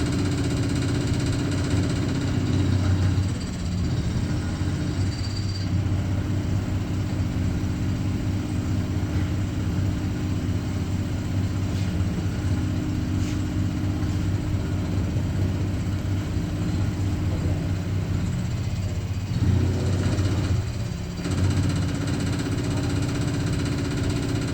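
CNC milling machine running with a steady mechanical hum, its tone shifting briefly about three seconds in and again near twenty seconds.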